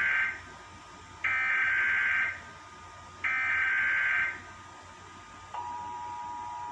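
Emergency Alert System SAME header: the last of one burst of warbling digital data tones, then two more identical bursts about a second long with a second's gap between them. About five and a half seconds in, the steady two-tone EAS attention signal starts.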